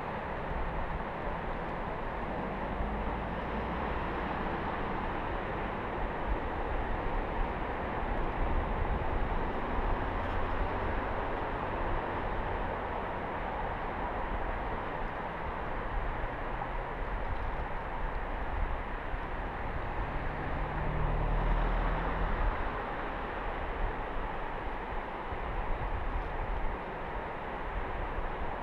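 Steady rushing seaside ambience of sea and wind, with uneven low rumbling that swells a few times, strongest a little past the middle.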